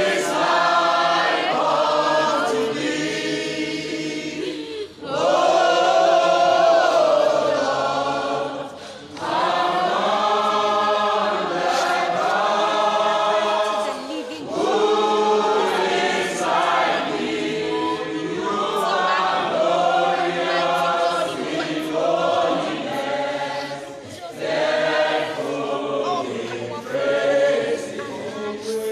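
A congregation singing a hymn together in long phrases, with short pauses between the lines.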